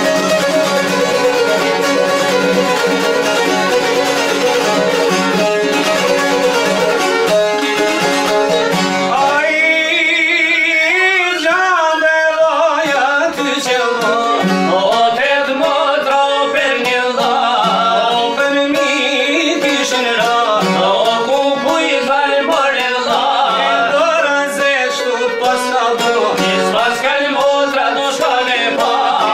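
Albanian folk band of çifteli and other long-necked plucked lutes with a violin, playing an instrumental passage. About ten seconds in, a man's voice begins singing a wavering, ornamented melody over the strings.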